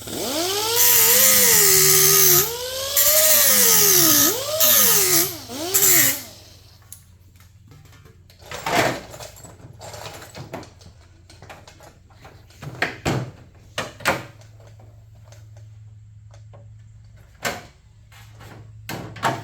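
Grinder running against the edge of a steel hood patch panel for about six seconds, its pitch sagging and recovering as it bites into the metal and lets off, stopping and restarting once. Then a few scattered knocks and clicks as the panel is handled.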